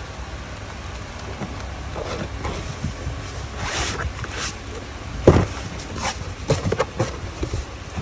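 Cardboard box being opened by hand: the flaps scrape and rustle, with one sharp thump a little past halfway and a few lighter knocks after it, over a low steady hum.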